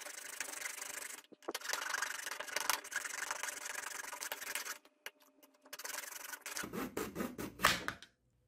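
Hacksaw cutting lengthwise through a short piece of plastic pipe in quick back-and-forth strokes, with two brief pauses. The sawing stops shortly before the end.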